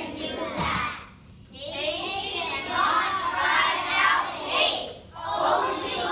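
A chorus of young children's voices in unison, most likely carrying on the Martin Luther King Jr. quote 'Darkness cannot drive out darkness; only light can do that…', with a short break about a second in.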